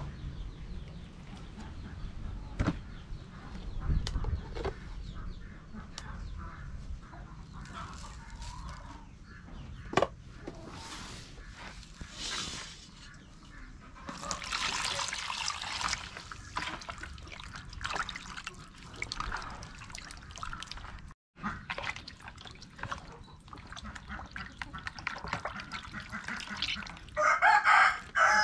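Water is poured from a bowl into a plastic basin as raw pork is rinsed by hand, with scattered knocks and splashes of handling. Near the end a rooster crows loudly.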